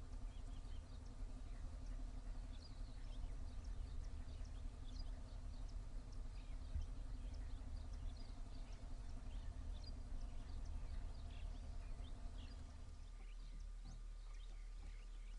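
Outdoor forest ambience: many short bird chirps scattered throughout over a steady low hum, which drops away about thirteen seconds in.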